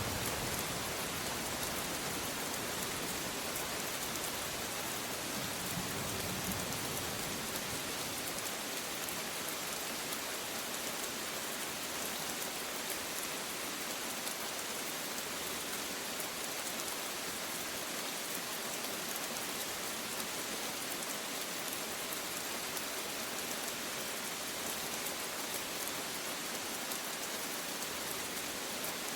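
Steady rain falling, an even hiss of drops on a surface, with the tail of a low thunder rumble dying away at the very start.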